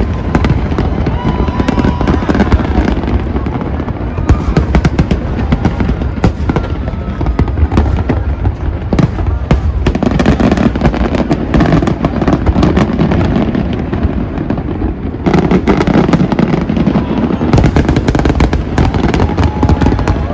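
Aerial fireworks going off in a dense, continuous barrage: many bangs and crackles in quick succession, heavier in the last few seconds.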